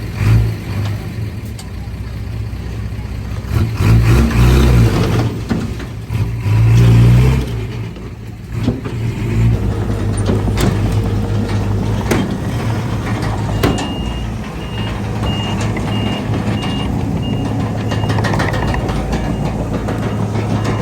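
Heavy diesel earthmoving machinery running, its engine surging twice under load, with several sharp metallic knocks. From about two-thirds of the way in a reversing alarm beeps steadily.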